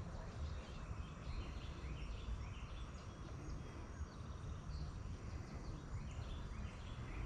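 Wind rumbling on the microphone, with small birds chirping repeatedly.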